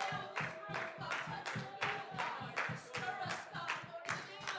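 Congregation clapping in a steady rhythm, about three claps a second, over a faint held musical note.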